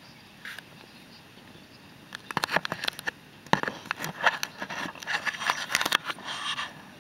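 Cooking utensils clattering and scraping against a barbecue grill: a quick, irregular run of sharp clicks and scrapes starting about two seconds in and stopping shortly before the end.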